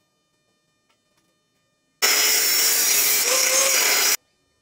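Silence, then about two seconds in an electric angle grinder cuts into an iron pipe: a steady tone under a loud hiss for about two seconds, which stops abruptly. It is cutting a notch so the pipe can be bent.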